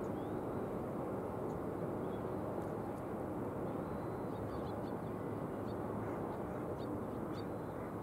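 Common kingfishers calling: faint, short, high, thin calls given several times, in a cluster about four seconds in, over the steady rush of flowing river water.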